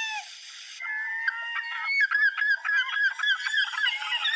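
Gulls calling: a long falling call at the start, then a quickening run of short, sharp calls from about two seconds in, overlapping at different pitches.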